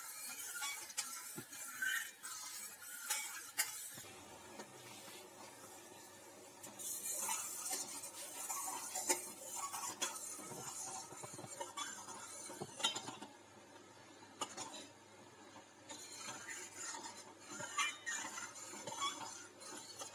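Steel ladle stirring and scraping through thickening chutney in a stainless steel kadai, with irregular clinks of metal against the pan.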